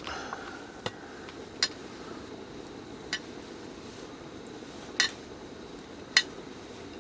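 Five short, sharp clinks spread over a few seconds, above a steady low hiss; the last two are the loudest.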